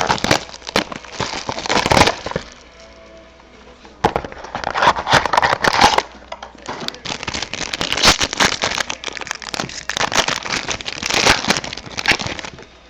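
Packaging of a trading card mini box being torn open and handled: crinkling and crackling of wrapper and cardboard in bursts, with two short pauses.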